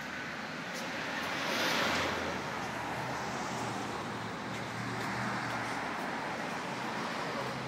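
Street traffic noise with wind buffeting the microphone. It swells to a peak about two seconds in, then settles to a steady rush.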